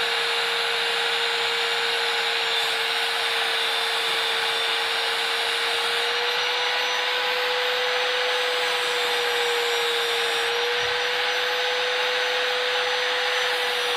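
Mailtank electric wood router running steadily at full speed with no cutting load: a constant whine over the rush of its motor and fan, holding one pitch throughout.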